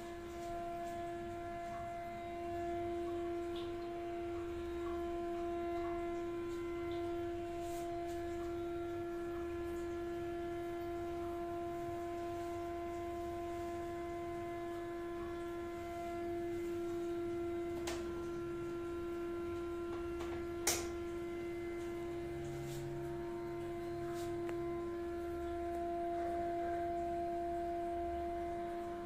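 Loud, steady humming drone on one held pitch, with a fainter tone about an octave above and weaker overtones; a siren-like hum heard in a flat's tiled toilet. A single sharp click sounds about two-thirds of the way in.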